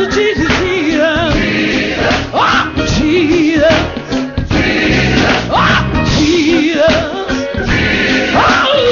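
Gospel song with a lead singer's melismatic vocals over a choir and band.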